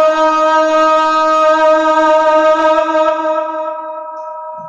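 A man's voice holding one long sung note of an Urdu naat, unaccompanied, at a steady pitch; it fades over the last second and a half and stops just before the end.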